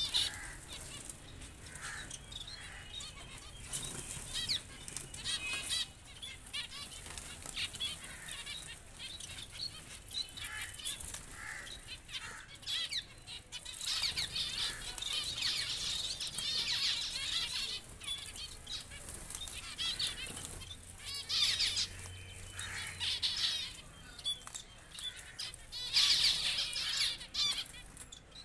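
A mixed flock of caged finches, Bengalese (society) finches among them, chirping and calling over one another, with occasional wing fluttering. The chatter swells in louder bursts a little past the middle and again near the end.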